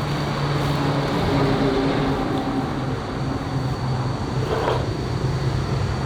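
A motor vehicle engine running steadily, with two short knocks, one past the middle and one near the end.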